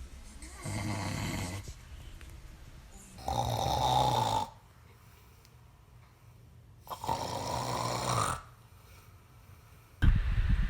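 A man snoring: three snores about three seconds apart, each lasting a second or more, then a sudden louder low rumble near the end.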